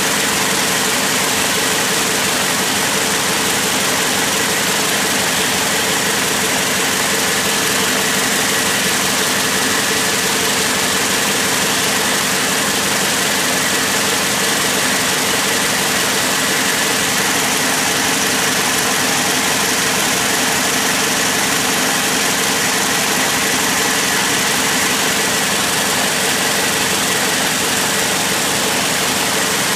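High-speed braiding machines running: a loud, steady mechanical din from the spindle carriers travelling round the machine bed, with a faint steady whine in it.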